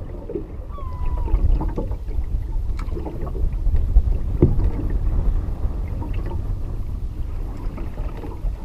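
Wind buffeting the microphone in a low, steady rumble over lake water lapping and splashing against a canoe, with scattered light knocks from the paddle and gear.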